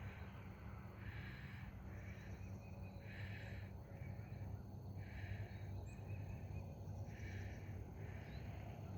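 Heavy breathing of a person walking briskly, one hissing breath about every two seconds, over a steady low rumble.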